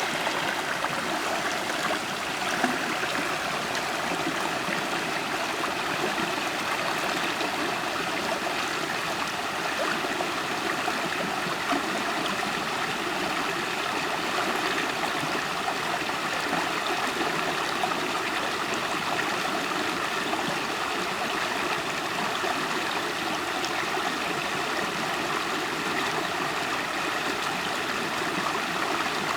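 River water flowing and gurgling over stones, a steady rushing that does not change.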